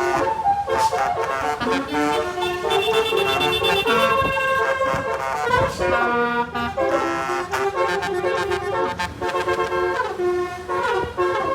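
Bus 'telolet' multi-tone horn playing a tune, several horn notes sounding together and stepping from pitch to pitch every fraction of a second.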